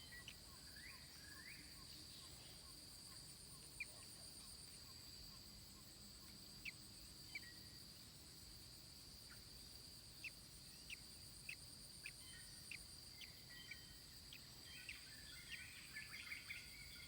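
Faint forest ambience: a steady high-pitched insect drone with scattered short, sharp bird chirps from the surrounding forest, which come thicker near the end.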